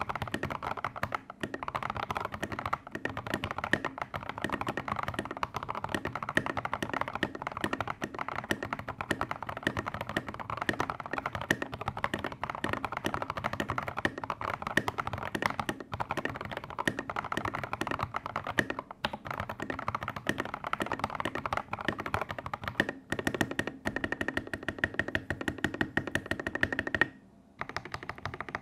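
Fast, continuous typing on a Daxa M84 mechanical keyboard fitted with lubed and filmed Gateron Yellow linear switches and SA-profile keycaps, its case dampened with foam. The keystrokes come in a dense, rapid stream, stopping briefly near the end.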